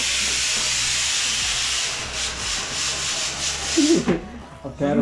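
A steady hissing noise that thins about two seconds in and stops about four seconds in, where a person's voice starts.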